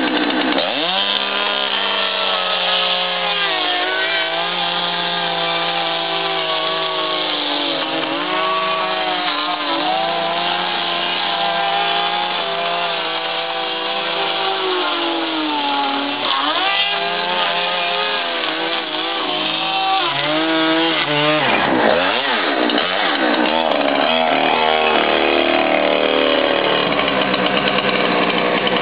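Large two-stroke chainsaw running at high revs while cutting through a hot tub shell. The engine pitch sags each time the chain bites into the shell and then picks back up. In the last few seconds the revs swing up and down unevenly.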